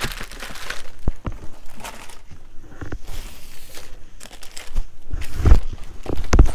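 Packaging crinkling and rustling as items are handled and unwrapped, with scattered small clicks and two dull thumps near the end.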